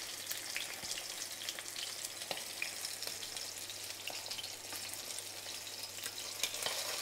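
Cornflour-coated garfish fillets shallow-frying in hot olive oil in a stainless steel frying pan: a steady sizzle with small scattered crackles.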